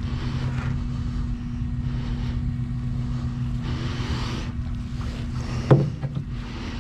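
Wooden paddle strokes pulling through pond water beside an aluminium jon boat, a swish with each stroke, with a sharp knock about two-thirds of the way through as the paddle hits the boat's side. A steady low hum runs underneath.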